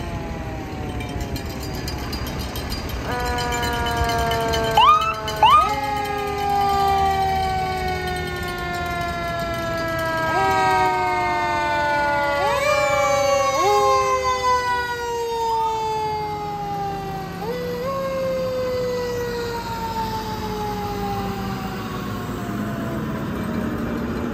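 Fire engine's mechanical siren, blipped again and again: each time its pitch jumps up quickly and then winds slowly down, over a low rumble of truck engines. Two loud short blasts come about five seconds in.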